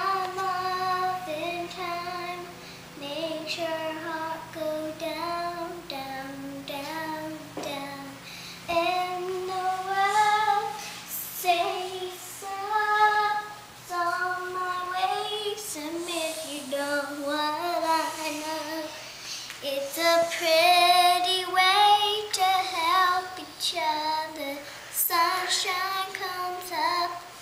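A young child singing alone in a high voice, phrase after phrase of held notes that slide up and down, with short breaks between phrases.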